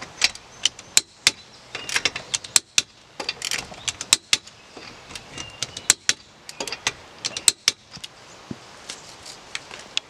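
Click-type torque wrench tightening a car's lug nuts to 115 ft-lb: the ratchet ticking in quick runs as it is swung back, and sharp clicks as the wrench lets go at its set torque, in an irregular series.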